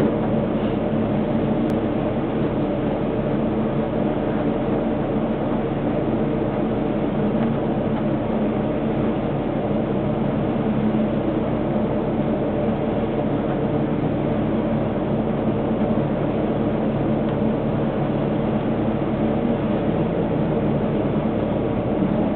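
Steady hum with a low drone inside the cab of a stationary Tatra K2 tram, its onboard equipment running while it waits.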